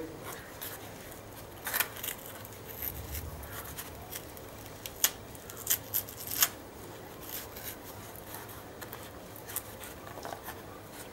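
Knife cutting and scraping into a palmyra palm fruit's fibrous flesh: a string of irregular sharp scrapes and clicks, thickest about halfway through.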